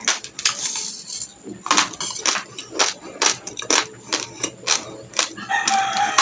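Close-up crunching of raw basmati rice being chewed: a quick, irregular run of sharp crunches. Near the end a brief pitched call sounds over the chewing.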